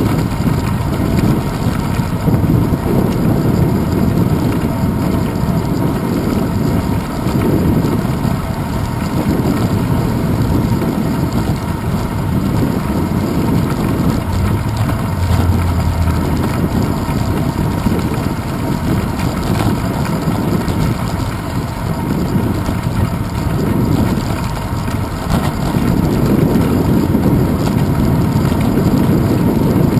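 Wind buffeting the microphone of a handlebar-mounted GoPro Hero 2 on a moving bicycle: a steady low rumble that swells and eases every few seconds, mixed with riding noise.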